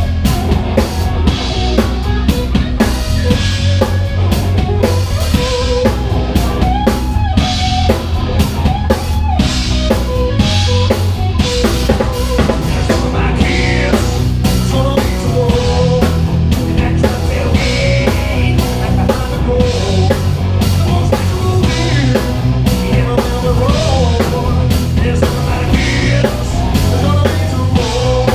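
Live rock band playing an instrumental passage: drum kit keeping a steady beat with snare and bass drum under bass and electric guitar.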